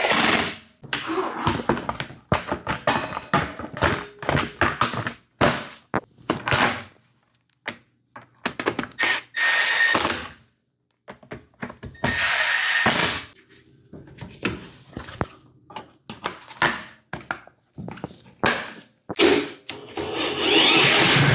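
Irregular knocks and clunks of hand tools and metal parts being handled on a lawn mower, broken by a few longer rushing noises a second or two long. Near the end the noise builds up steeply.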